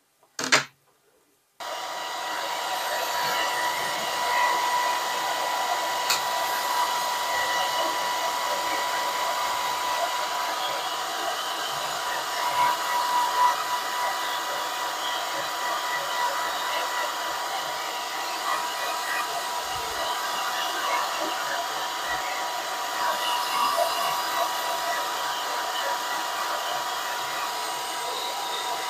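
A short knock, then a hair dryer switches on about a second and a half in and blows steadily, with a faint steady whine over the rush of air.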